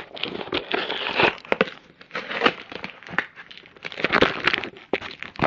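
Packaging being opened by hand: irregular crinkling and crackling with sharp rustles.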